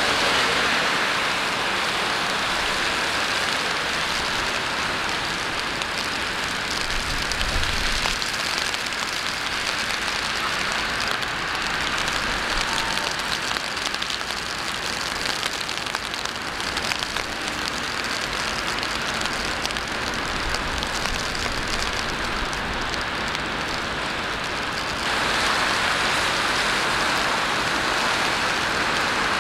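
Steady rain falling on city streets, an even hiss, with city traffic under it and a brief low rumble about seven seconds in. The rain gets a little louder near the end.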